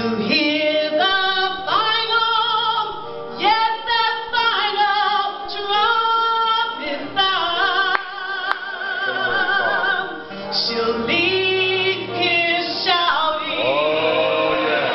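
Church choir singing, women's voices to the fore, with long held notes that waver slightly.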